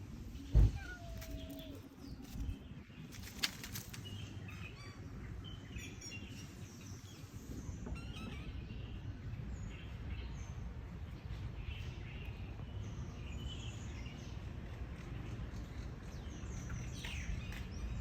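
Outdoor ambience with small birds chirping on and off over a low background rumble; a single sharp low thump about half a second in.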